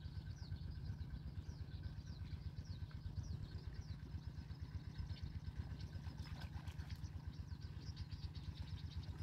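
A small engine running steadily, a low, fast-pulsing hum, with a bird repeating short falling chirps over it, most often in the first half.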